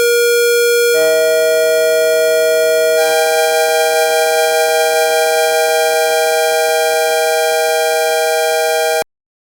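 Synthesized emergency-alert tone closing an alert broadcast. A steady, buzzy electronic note is joined about a second in by a second, higher note. At about three seconds more layers join with a regular pulsing, and the whole tone cuts off abruptly near the end.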